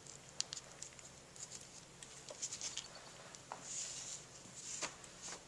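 Nitrile-gloved hands handling small pump parts and O-rings on a workbench: faint rustling and scattered light clicks, with a few louder rustles in the second half.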